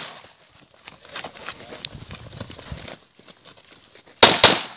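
Footsteps running on dry dirt and gravel for about two and a half seconds, then two quick shots from a Ruger SR-556VT semi-automatic rifle near the end, the loudest sound. The last echo of a previous shot dies away at the start.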